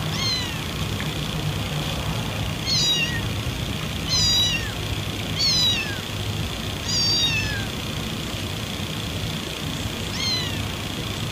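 Domestic cat giving six short, high-pitched meows at irregular intervals, each one sliding down in pitch. A steady low hum runs underneath.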